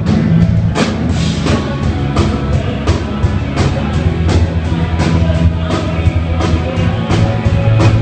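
Rock band playing live during a sound check: a drum kit keeps a steady beat of about three hits every two seconds over bass and electric guitar.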